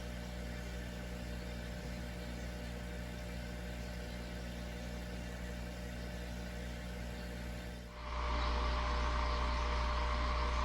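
Steady low machine hum. About eight seconds in, a louder, steady rushing noise starts up over it.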